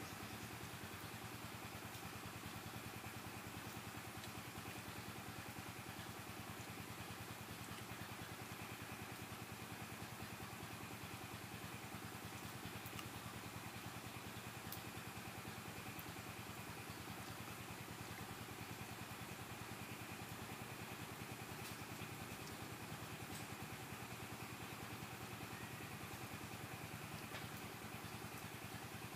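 A steady low drone, like a small engine idling, with fine even pulsing and no change in level.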